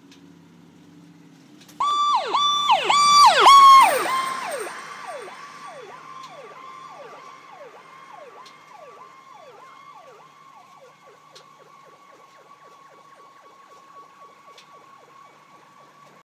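Emergency vehicle siren in a fast yelp, quick repeating sweeps that cut in suddenly about two seconds in, loudest briefly, then fade steadily into the distance as the responding vehicle pulls away, still cycling. A low engine rumble comes before the siren starts.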